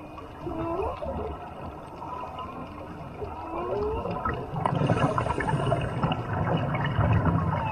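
Whale song heard underwater: drawn-out moans that slide up and down in pitch, one rising sweep about half a second in, another about three and a half seconds in, and a falling one near the end. Behind them the bubbling and gurgling of scuba regulator exhaust, louder from about halfway.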